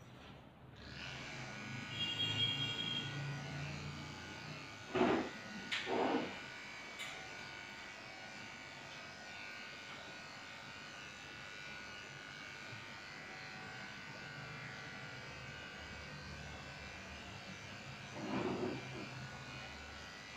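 Electric dog grooming clippers switch on about a second in and run with a steady buzz, shaving down a shih tzu's coat. Three short, louder sounds stand out over the buzz, two close together about five and six seconds in and one near the end.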